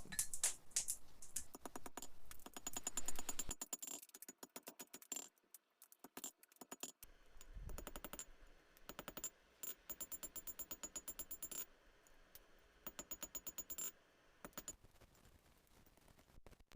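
Hammer striking steel on an anvil: quick, even runs of light blows, several a second, with a faint high ring, broken by short pauses, as the hand-forged multi-tool's pliers are forged out.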